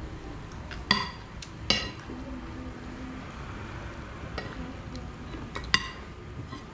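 Kottu roti frying on a hot flat griddle with a steady sizzle, and three sharp, ringing clinks of metal kottu blades striking the griddle: about a second in, again just under a second later, and near the end.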